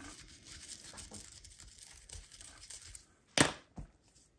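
Steel wire brush pen scrubbing rust off the metal contact on an HO-scale locomotive truck, a faint scratchy rasping. About three seconds in, a sharp clack and a lighter second knock as the pen is set down on the tabletop.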